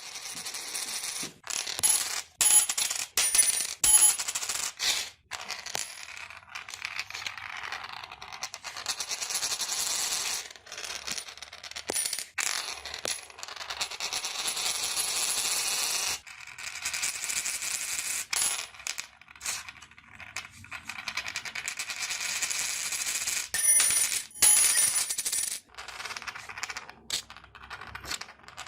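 Coins spinning on a hard surface: a metallic ringing rattle that runs for a few seconds at a time, in several spins separated by brief gaps, with sharper clinks near the start and again about 24 seconds in.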